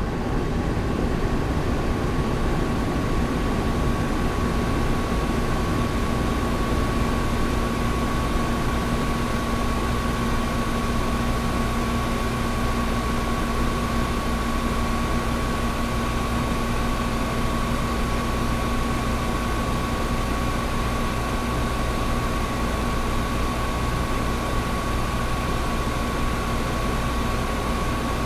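Window air conditioner running steadily: an even rush of blown air with a constant low hum and a thin steady whine above it.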